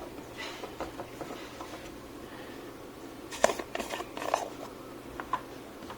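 Light clicks and taps of small hand tools on a circuit board during work to remove an amplifier IC, with a cluster of sharper clicks about three and a half seconds in.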